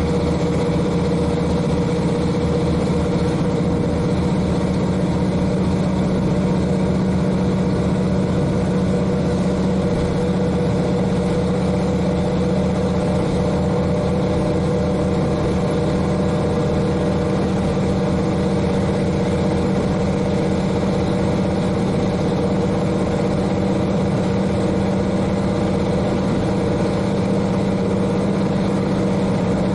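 The KiHa 40 railcar's N-DMF13HZI diesel engine running at a steady speed, heard from the cabin floor directly above it, with an even drone and no change in pitch.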